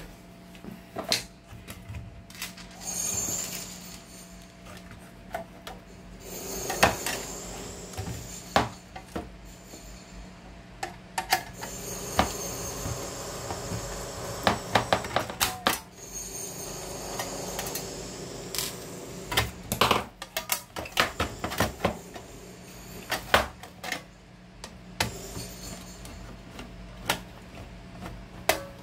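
A screwdriver working screws out of the sheet-metal case of a one-transistor regenerative radio. There are irregular metallic clicks, scrapes and clinks as the screws turn and the metal panels are handled, over a low steady hum.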